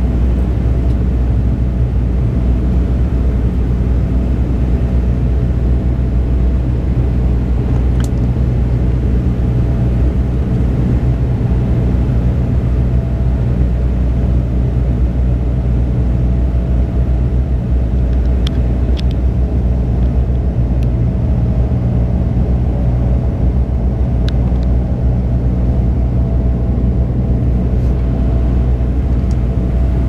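Cabin drone of a de Havilland Canada Dash 8-100 in flight, heard from a window seat beside the engine: the twin turboprop engines and propellers give a loud, steady low rumble with a constant hum above it. A few faint clicks come through about a third of the way in and again past the middle.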